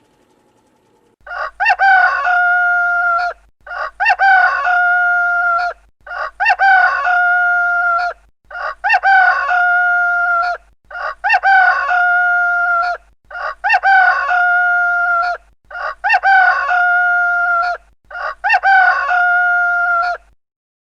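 A rooster crowing eight times in a row, about every two and a half seconds. Each crow is identical, so this is one recorded crow played on a loop.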